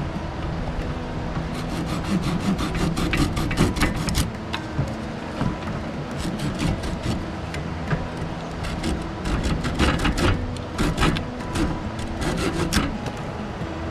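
Irregular scraping and rubbing with many sharp clicks and clatters, as of objects being handled and rubbed together, over a steady low hum.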